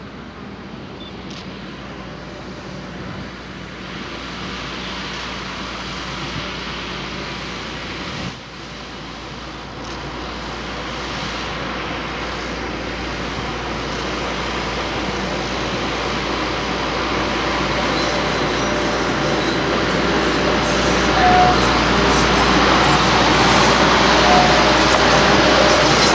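Diesel sugarcane-train locomotive on a narrow-gauge cane railway approaching and passing, its engine and wheels growing steadily louder. A few short high squeals come near the end as the loaded cane bins roll by.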